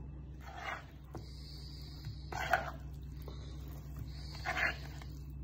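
Hand squishing raw chicken wings in a thick yogurt-and-spice marinade in a plastic bowl: three short wet squelches a couple of seconds apart, over a steady low hum.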